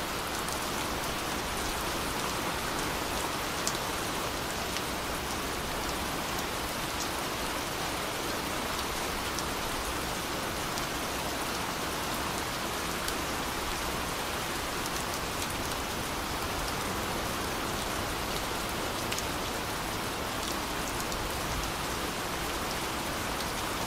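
Steady rain, an even hiss with scattered faint drop ticks, used as the masking track of a subliminal recording.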